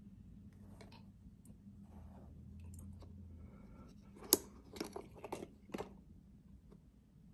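Handling noise of a sneaker being turned over in the hand: four short, sharp clicks and rustles about two a second, starting about four seconds in, the first the loudest, over a faint low steady hum.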